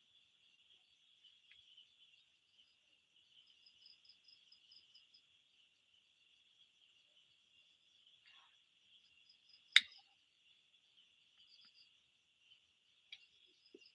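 Night insects, crickets by the sound of it, keeping up a steady high-pitched buzz, with short runs of rapid chirps above it. A single sharp click sounds about ten seconds in.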